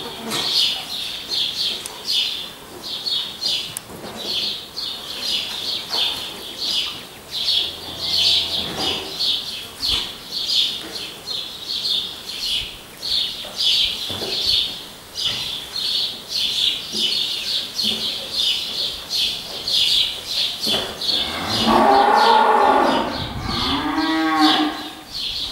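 A continuous chorus of rapid, high-pitched pulsing calls. About 21 seconds in, a loud drawn-out animal call begins, rising and falling in pitch. It breaks into several shorter rising-and-falling calls near the end.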